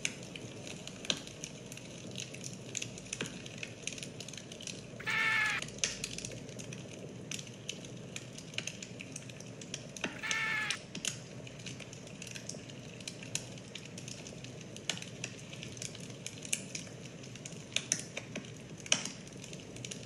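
Wood fire crackling, irregular sharp pops over a steady hiss. Twice, about five and ten seconds in, a short pitched call of just under a second rises above it.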